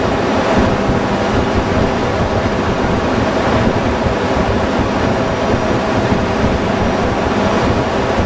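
Loud, steady ship engine-room machinery noise: a constant rush with several steady hum tones underneath, unchanging throughout.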